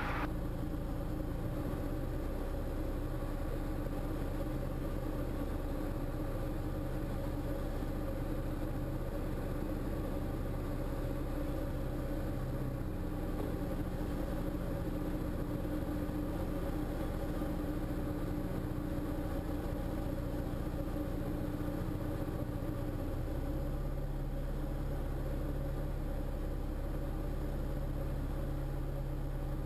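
Single-engine Diamond light aircraft's piston engine and propeller droning steadily, heard inside the cockpit, at reduced power on final approach to land. The engine note shifts a little partway through and again later, as the power is adjusted.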